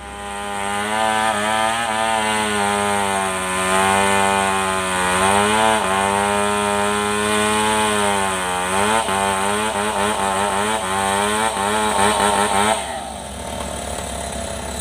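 Chainsaw running at full throttle while cutting through a large felled log, its pitch sagging and recovering a few times as the chain bites. Near the end the throttle is let off and it drops to a lower, quieter running.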